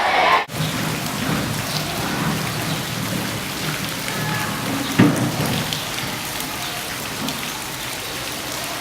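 Steady rain falling, an even hiss of drops, with one sharp knock about five seconds in.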